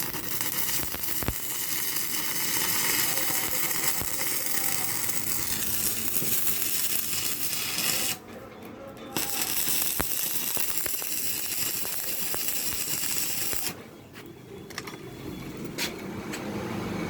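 Electric welding arc from a 250-amp welding machine set to 200 amps, crackling and sizzling steadily in two runs with a break of about a second in between. The arc stops a few seconds before the end, followed by a few sharp taps.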